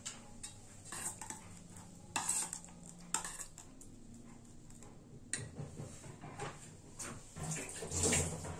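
Kitchen utensils clinking and clattering off and on: single light knocks a second or more apart, then a louder run of clatter near the end.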